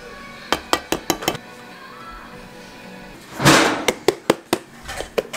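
A metal cake pan of batter is knocked repeatedly on a tiled counter, about four to five knocks a second in the second half, to settle the batter and knock out air bubbles, with a louder clatter just before the knocking starts. Earlier, a few sharp clinks of a whisk against a stainless mixing bowl. Background music runs underneath.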